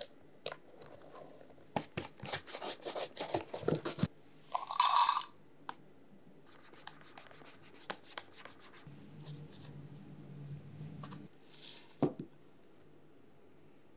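Handling noises of shoe polishing: a lace rasping in quick strokes as it is drawn out through a leather shoe's eyelets, then a short loud scrape as the metal lid of a shoe-cream tin comes off. Faint rubbing follows, and a single sharp knock near the end as a metal tin is set down on the counter.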